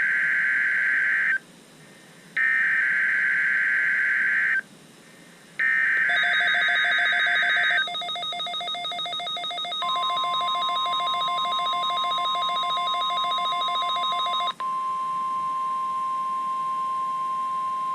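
NOAA Weather Radio weekly test alert. First come three bursts of SAME digital header data, a harsh buzzing warble. Then the steady 1050 Hz warning alarm tone starts about ten seconds in and holds for about nine seconds, with a fast electronic pulsing laid over its first part.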